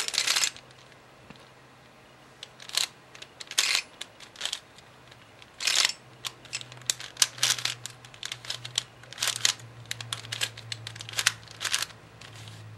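A 3x3x4 fully functional cuboid twisty puzzle being turned by hand through an algorithm: its plastic layers click and clack, sparse at first and coming thick and fast from about halfway through.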